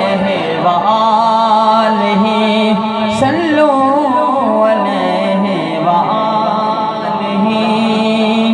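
A man's voice sings a naat through a microphone in long, ornamented, wavering held notes, with a steady low note sounding beneath.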